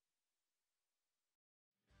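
Near silence in a gap between two pieces of background music.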